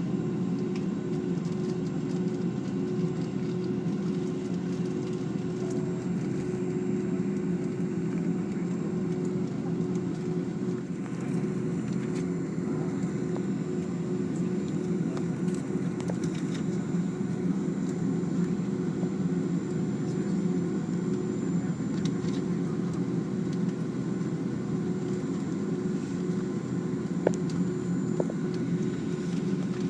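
Boeing 757-200's jet engines and airflow droning steadily, heard from inside the passenger cabin.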